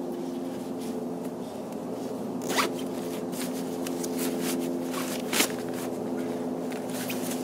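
A zipper being worked open in short rasping strokes, with two sharper rasps about two and a half and five and a half seconds in, over a steady hum of distant road traffic.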